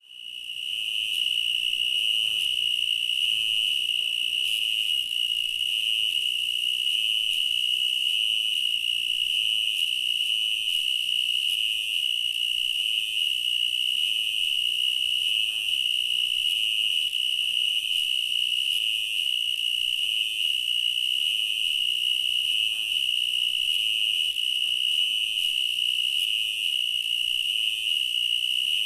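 Cricket chirping in one continuous high-pitched trill, fading in at the start and then holding steady.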